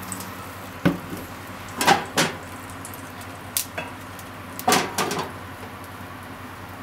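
Metal frying pan clunking against a gas stove's burner grate as it is lifted, tilted to spread the oil and set back down: several knocks, in twos and a short cluster, over a steady low hiss.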